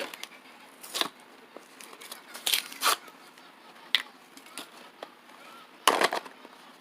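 Plastic wrapping on a surprise-toy package crinkling and tearing as it is opened by hand, in a handful of short rustling bursts, the loudest near the end.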